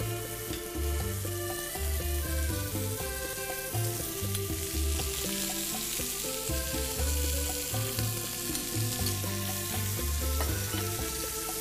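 Meat and pepper skewers sizzling on an oiled griddle grill plate, a steady frying hiss, with tongs moving them now and then. Background music with a rhythmic bass line plays under it.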